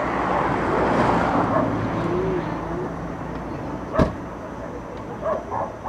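Fireworks display: a broad rumble from earlier bursts fading away, then a single sharp firework bang about four seconds in.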